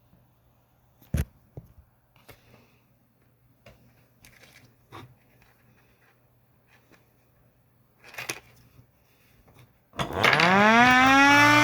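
Faint scattered clicks and knocks, then about ten seconds in an outdoor warning siren starts up loud during a siren test, its pitch winding steadily upward.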